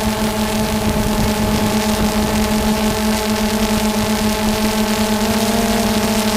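DJI Phantom 2 quadcopter's electric motors and propellers running in flight: a steady buzzing hum over rushing air noise, its pitch shifting slightly about five seconds in.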